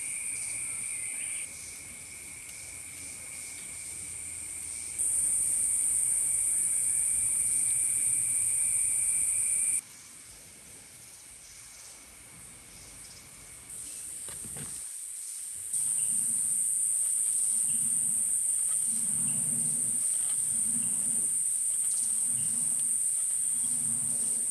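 Steady high-pitched buzz of an insect chorus, jumping louder and softer several times. In the second half a low, soft rhythmic whoosh comes about once a second as the clay spinning blower is turned by its drive rod.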